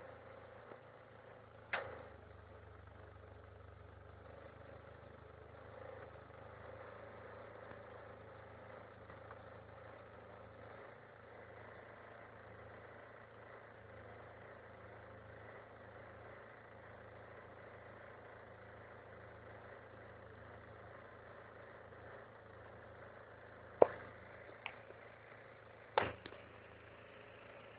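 Car engine idling steadily and faintly, with a few sharp clicks or knocks: one about two seconds in and three close together near the end.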